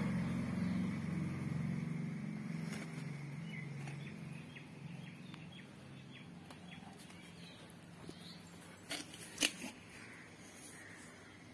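Fingernails cracking head lice during hand nit-picking in long hair: scattered faint clicks, then a sharp cluster of clicks about nine seconds in. A low engine hum fades away over the first few seconds.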